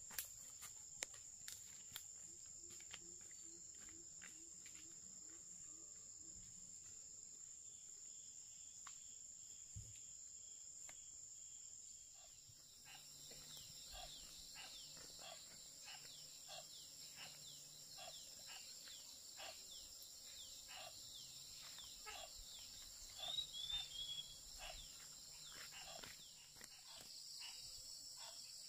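Insects drone steadily in a high pitch, with faint scattered clicks and a run of evenly repeating short strokes, about one and a half a second, through the second half. A bird chirps briefly near the end.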